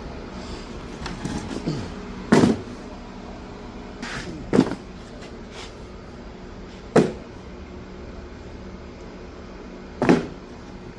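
Four loud knocks or clunks spaced two to three seconds apart, with some smaller clatter just before the first, over a steady low hum: parts and tools being handled during radiator work on a minivan.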